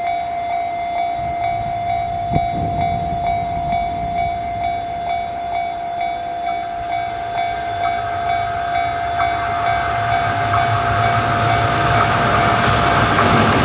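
EH200 electric locomotive with a container freight train approaching over the rails, its rumble building steadily louder. A level-crossing warning bell rings with a steady tone over it. A high hiss joins about halfway through as the train nears.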